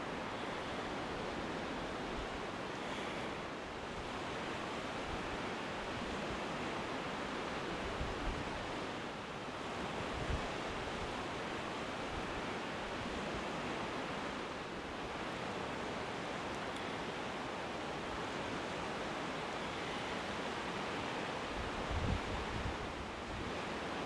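Steady rushing of the Salmon River's water, an even unbroken noise, with a couple of brief low thumps, one near the middle and one near the end.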